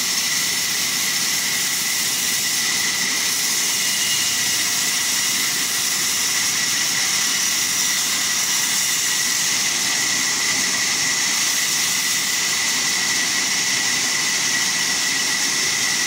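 Large vertical band saw cutting lengthwise through a log: a steady high-pitched whine over a hiss, running evenly throughout.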